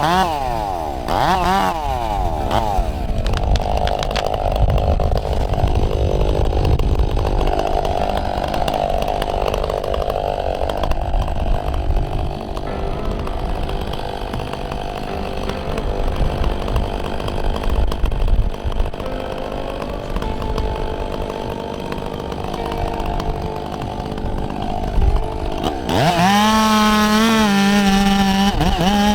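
Chainsaw revving, then cutting into a tree trunk under load for about twenty seconds, its engine pitch lower and uneven as the chain bites; near the end it comes free and revs high again.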